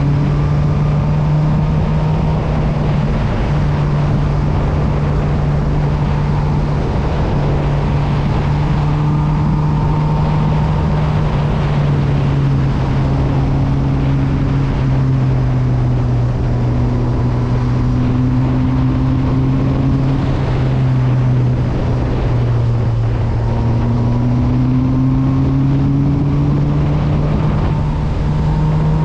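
Honda CB1000R motorcycle's inline-four engine running steadily under way, its pitch rising and falling gently with small throttle changes, over a steady rush of noise.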